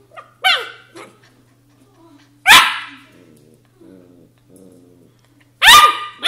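Australian shepherd puppies barking at each other with short, high, sharp barks: one about half a second in, one at about two and a half seconds, and two in quick succession near the end. Softer, low grumbling comes in between.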